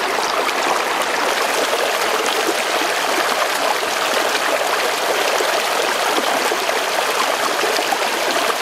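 Shallow rocky stream running over stones and a small cascade: a steady rush of water.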